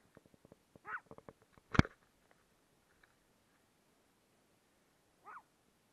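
Domestic cat meowing: one short meow about a second in and another near the end. A sharp knock or click just under two seconds in is the loudest sound.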